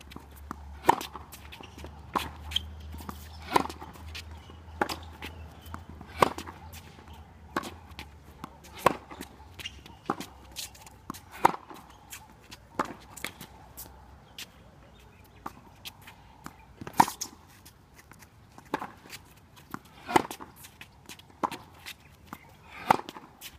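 Tennis rally on a hard court: sharp pops of the ball coming off racket strings, the loudest about every two and a half seconds, with softer ball bounces and footsteps between them.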